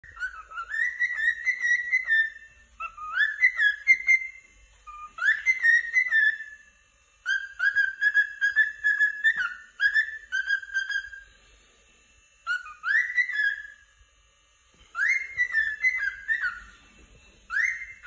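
Cockatiel whistling and chirping in a run of short phrases, many notes rising and some held level, coming in bouts with brief pauses between them.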